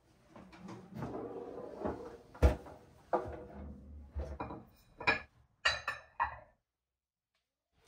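Handling sounds of a small countertop oven and a ceramic planter being set down on a stone countertop: rustling and shuffling, one loud knock about two and a half seconds in, then a few sharp clicks and knocks.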